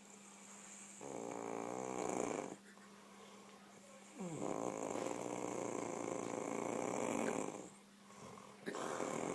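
A woman snoring in her sleep, in long rough breaths. One snore starts about a second in, a longer one from about four seconds in, and a third begins near the end.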